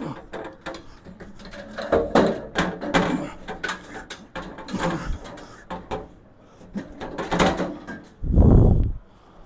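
Steel tool box knocking, clunking and scraping as it is set down and shifted on top of the rolling tool cabinet, with a heavier low scrape lasting under a second near the end.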